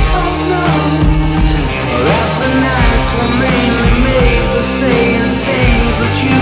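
Rock music with a heavy, steady bass line and drum beat.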